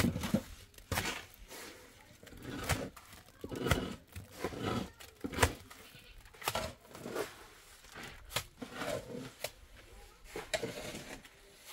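Goats bleating among irregular knocks and rustling.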